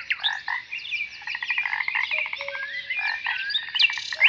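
Outdoor chorus of birdsong and frog calls: many quick downward-sweeping chirps over fast rattling trills.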